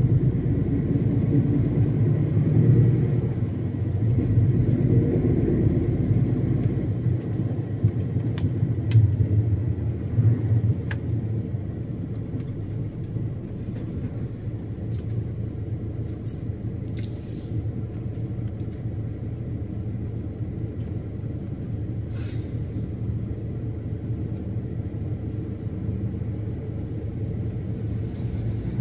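Iveco Stralis 570 truck's Cursor 13 straight-six diesel running on the road, a low engine drone that is louder over the first ten seconds and then eases to a steadier, lower hum. A few faint clicks come about a third of the way in, and two short hisses come past the middle.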